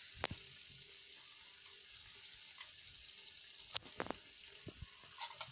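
Faint, steady sizzle of ghee in moong dal halwa cooking in the pan, with a few soft clicks.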